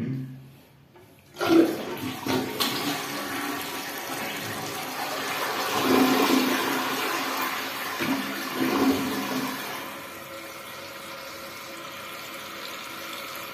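Cistern toilet flushing, a test of its newly fitted black rubber flapper. The water rush starts abruptly about a second and a half in and is loudest midway as the tank empties. At about ten seconds the flapper has dropped shut, and the tank refills with a steadier, quieter hiss.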